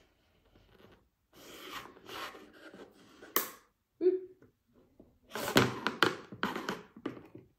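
Scissor blade used as a pen, scratching across paper in two spells of strokes, with a few sharp clicks and taps of the metal.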